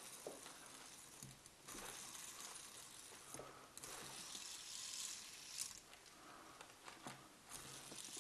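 Faint, scattered clicks and light rustling as a small ring-shaped toy is turned over in the hands.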